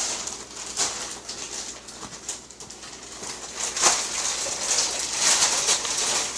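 Sticky slime being squeezed and stretched in the hands, giving irregular wet, crackly squelching.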